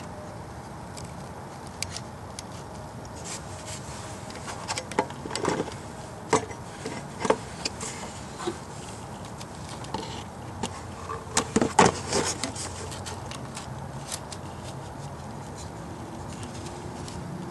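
Irregular clinks and knocks of hand tools and metal parts as an engine part is worked loose or fitted by hand, busiest and loudest about two-thirds of the way through, over a steady faint background hum.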